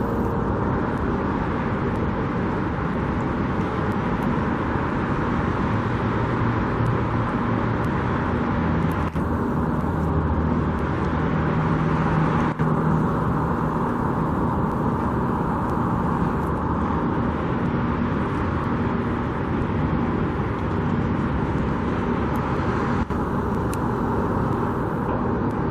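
Steady engine and road noise of a car being driven, with the engine note growing stronger for a few seconds midway.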